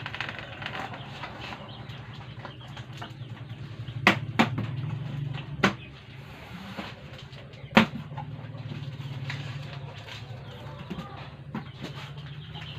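A cardboard box being opened by hand, its flaps rustling and folding back, with four sharp cardboard snaps or knocks: two close together about four seconds in, another about a second and a half later, and one more a couple of seconds after that.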